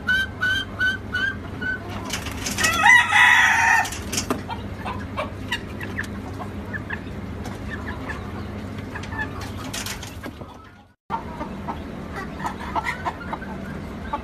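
Bantam chickens calling: a run of short, evenly spaced peeps at about three a second, then one loud call lasting a little over a second, followed by scattered clucks and scratching sounds. The sound cuts out completely for a moment about three quarters of the way through.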